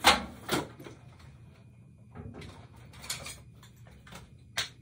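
Knocks and clicks of things being handled and moved about: a loud knock at the start, another about half a second in, a scatter of smaller clicks around two to three seconds, and a sharp click near the end.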